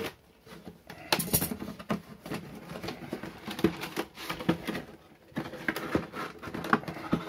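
Scissors cutting through a cardboard outer carton, then the cardboard kit box being slid out and handled: irregular crackling, scraping and tapping of cardboard, with a short lull just after five seconds.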